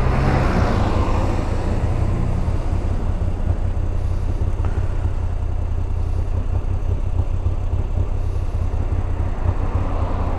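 Moto Guzzi V85TT's air-cooled V-twin engine running, under a continuous heavy low wind rumble on the microphone. The noisier upper hiss is stronger in the first second and swells again near the end.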